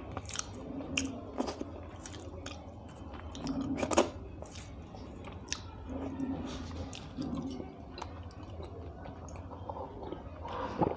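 A person chewing and eating soft food, rice with saag curry and chicken liver fry, with scattered wet mouth clicks and smacks. One louder click comes about four seconds in.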